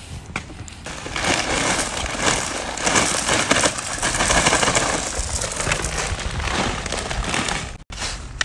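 Road base, a coarse sand-like gravel, pouring out of a plastic bag into a hole lined with weed mat: a steady gritty rushing that lasts several seconds.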